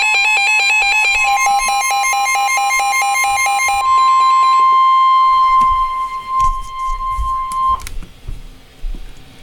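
Emergency Alert System alert tones for a severe thunderstorm warning: a loud, rapidly pulsing two-note tone that changes about four seconds in to one steady higher tone. The tone cuts off sharply near the end, and a few scattered knocks follow.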